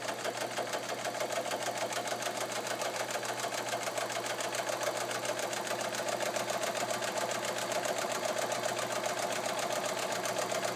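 Kenmore 158.1750 sewing machine running its 1.2-amp motor and stitching steadily through four layers of medium-weight upholstery fabric at a short stitch length. It makes a rapid, even clatter of needle strokes over the motor's hum, getting slightly louder about six seconds in.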